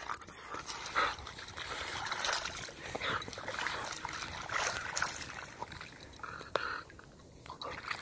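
A dog pawing and wading in shallow lake water at a sandy edge: irregular splashes and sloshing.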